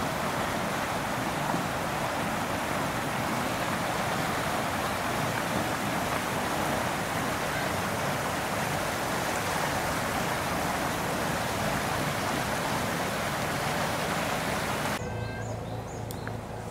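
Steady rushing noise that cuts off abruptly near the end, leaving quieter background with a faint low hum.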